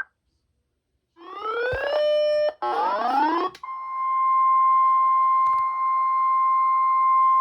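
Weather radio alert: two short bursts of rising electronic tones, then the steady single-pitch NOAA Weather Radio warning alarm tone (1050 Hz), which comes in about halfway through and holds. The tone signals that a new warning is about to be read.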